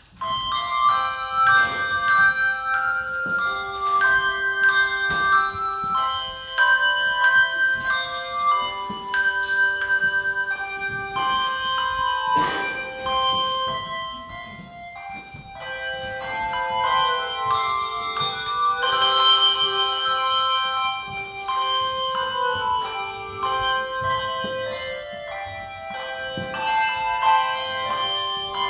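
Handbell choir playing an anthem: many tuned hand bells struck in chords and a melody line, each note ringing on and overlapping the next.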